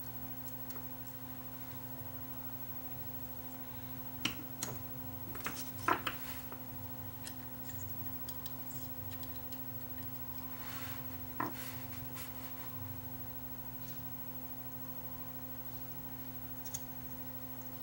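A few light metal clicks and taps as a soldering iron and small screwdriver work the wire terminals on a small DC motor's end-cap circuit board, over a steady low electrical hum.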